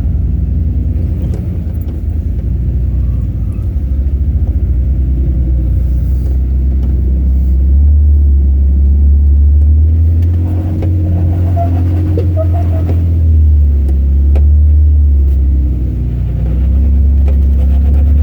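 Jeep engine running on a rocky off-road trail, a deep low rumble that swells louder about halfway through and rises and falls after, with a few faint clicks and knocks.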